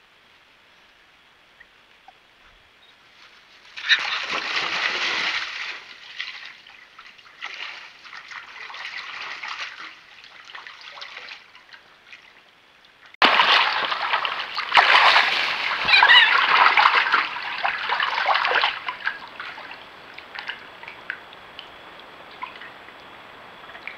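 Eurasian otters splashing and churning through shallow water as they chase each other, in three bursts; the longest and loudest comes about halfway through and lasts some five seconds.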